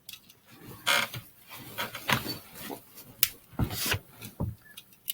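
Homemade Lego balisong being flipped open and closed by hand: its plastic-brick handles clicking and clattering against each other in an irregular series of short knocks and rattles.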